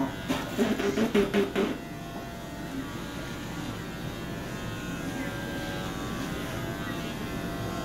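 Electric hair clippers with a guard comb running steadily as they cut through short hair, a continuous motor hum. Near the start there is a brief, louder burst of rapid pulses.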